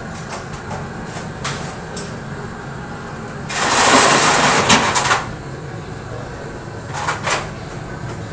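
Corrugated metal sheet dragged across a wet concrete floor, scraping loudly for about a second and a half midway through, then briefly again near the end, over a steady low hum.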